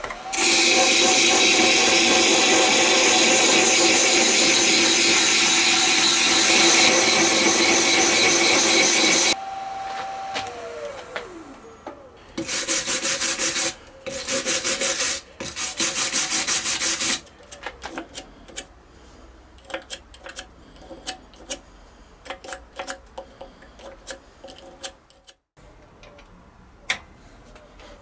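Wood lathe running with a tool rubbing against the spinning resin-and-banksia-pod blank. The rubbing is loud and steady for about nine seconds, then stops abruptly. The lathe then winds down, its motor whine falling in pitch, followed by three short loud rushing bursts and scattered clicks and knocks.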